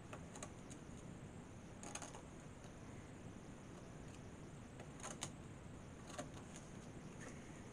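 X-Acto craft knife cutting out a small fabric piece on a cutting mat: faint, scattered clicks and short scrapes, the loudest about 2 s and 5 s in.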